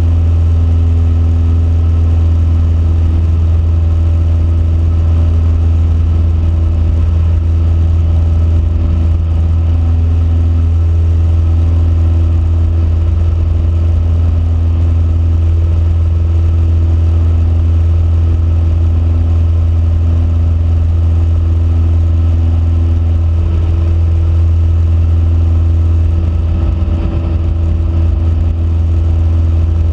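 Cessna 172P's four-cylinder Lycoming O-320 engine and propeller running steadily at climb power just after takeoff, heard inside the cabin as a loud, even drone that wavers slightly near the end.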